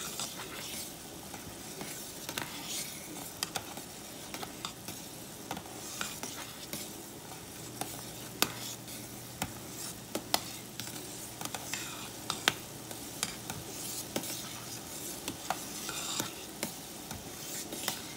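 Mango jelly (juice, sugar and pectin) at a rolling boil in a pot, stirred constantly with a spoon: a steady bubbling hiss with scattered sharp clicks of the spoon against the pot. This is the one-minute hard boil that sets the pectin.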